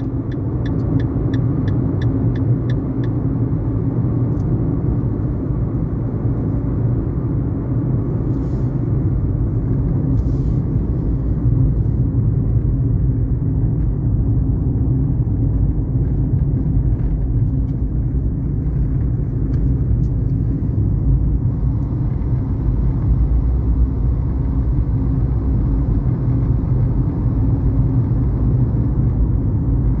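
Steady low rumble of engine and tyre noise inside a car cruising on an asphalt highway, with a short run of light, evenly spaced ticks, about three a second, in the first few seconds.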